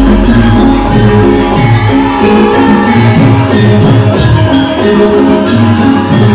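Loud music for a Javanese lengger dance: a pitched melody over a regular percussion beat. A deep low note fades out during the first couple of seconds.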